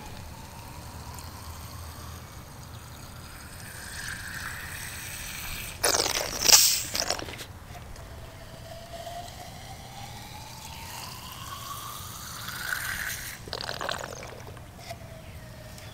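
Thin stream of gasoline squirted from a squeeze bottle into an intake port of a six-cylinder head, trickling with a pitch that rises as the port fills, twice over; a leak check of whether the intake valve seals. A brief loud noise about six seconds in.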